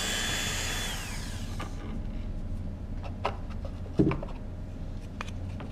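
Dremel rotary tool spinning a stub of ABS filament at high speed for friction welding, then switched off and winding down with a falling whine about a second in. This is followed by a few light clicks and one louder knock as the parts are handled.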